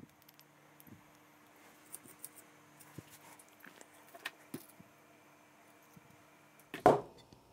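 Faint handling clicks and taps as a pen-style soldering iron is picked up and its tip set onto a tip thermometer's sensor, over a faint steady hum. A brief louder thump comes near the end.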